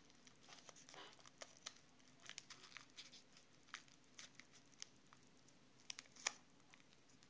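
Faint crinkling and small clicks of paper and a small plastic bag being handled and folded by hand, with one sharper click about six seconds in.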